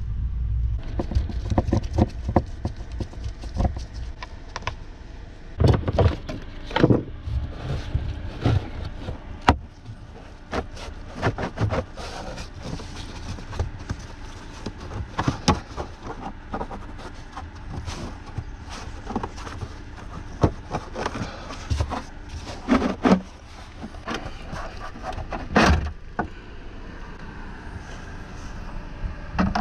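Hands working in a stripped car footwell: an irregular run of clicks, knocks and rattles as plastic interior trim and hand tools are handled, with a few louder knocks.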